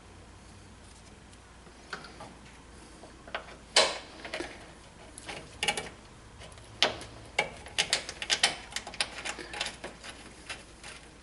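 Light metal clicks and ticks of hand tools working the brake line fitting at a new front brake hose. The clicks are scattered at first, then come in quick runs over the last few seconds.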